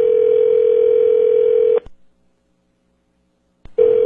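Telephone ringback tone heard over the phone line as the call is placed again: one steady tone that sounds for about two seconds, stops, and comes back near the end.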